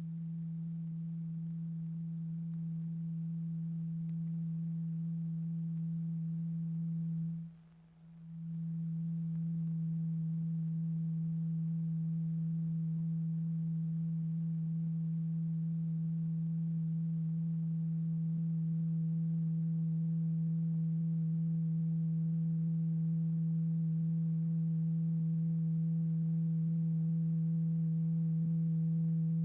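A steady low pure tone, the oscillator signal driving the vibrating rubber diaphragm, with faint overtones above it. It cuts out for about a second some seven seconds in, then comes back and holds steady.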